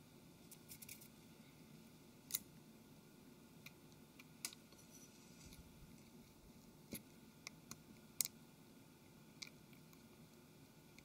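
Near silence broken by scattered faint, sharp clicks and taps as a smartphone's small earpiece speaker and headphone socket are handled and pressed into the phone's plastic frame.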